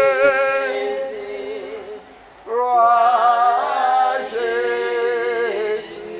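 Unaccompanied singing, one man's voice close by and loudest, in long held notes sung in three phrases with short breaths between them.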